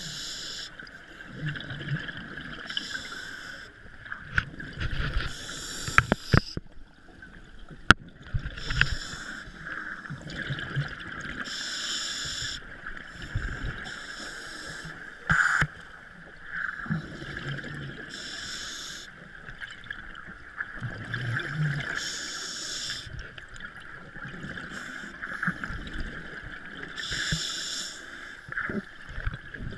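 Scuba diving heard underwater: bursts of exhaled bubbles from a regulator every three to four seconds over a steady high hum, with a few sharp clicks partway through.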